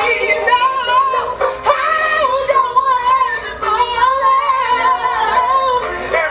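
A high solo singing voice doing vocal runs, its pitch wavering and gliding quickly between notes, with a few held notes.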